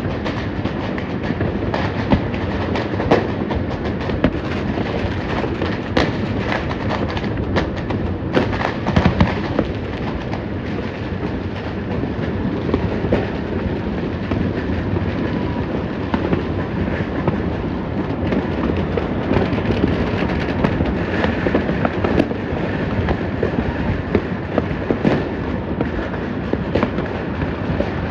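Many fireworks and firecrackers going off at once in a dense, unbroken crackle and popping, with sharper, louder bangs now and then, around three, six and nine seconds in.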